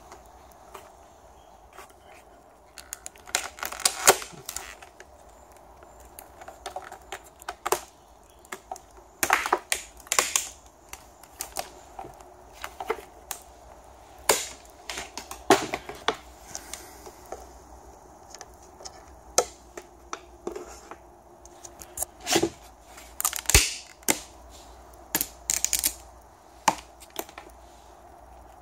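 Hot-glued corrugated plastic (Corex) strips being pried and snapped off a fibreglass mould: irregular sharp cracks and clicks as the glue joints break, some coming in quick clusters.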